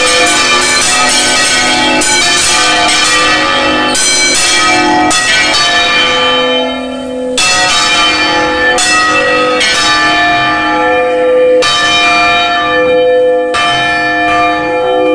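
Cathedral bells swung full circle by hand, heard loud from inside the belfry: each stroke rings on with a long hum of overtones. The strikes come thick and fast at first, then thin out to about one every one to two seconds.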